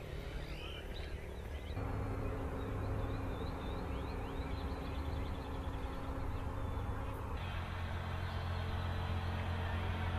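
Outdoor ambience: birds chirping during the first couple of seconds, then a steady low engine hum that runs on with a few chirps above it. The sound changes abruptly about two seconds in and again near seven seconds.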